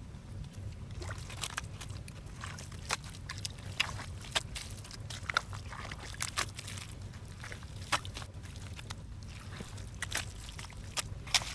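Wet mud squelching and slapping in irregular sharp splats as hands and feet work it around buried PVC pipes, over a steady low rumble.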